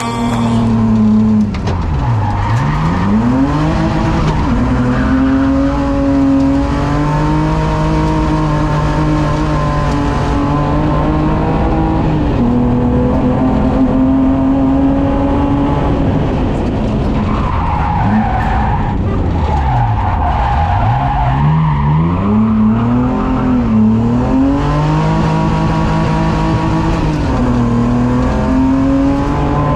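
Race car engine heard from inside the cockpit, running hard at high revs and changing pitch through the gears. The revs fall sharply and climb again twice, about 2 seconds in and again around 20 seconds. Tyres squeal briefly a little before the second drop.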